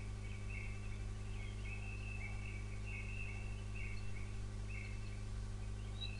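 Quiet background tone: a steady low electrical hum, with faint high chirps coming and going.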